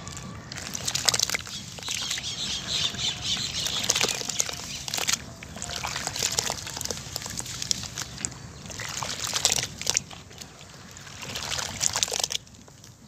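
Hands squeezing and crumbling wet sand-cement chunks in a plastic basin of water: squelching, gritty crackling and sloshing in several bursts with short pauses between them.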